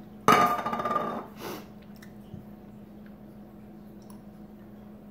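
A man's loud, partly voiced exhale, starting suddenly about a third of a second in and lasting under a second, then a shorter breath. After that only a faint steady low hum remains.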